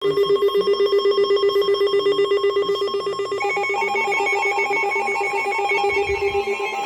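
Electronic alert tone: a buzzy low beep pulsing several times a second, joined about three and a half seconds in by higher pulsing tones.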